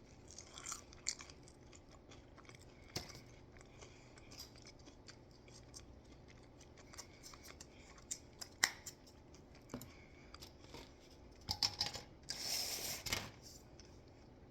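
Close-up crunching and chewing of a crisp breaded fried ravioli: scattered sharp crackles, with a louder cluster and a short burst of rustling noise about twelve seconds in.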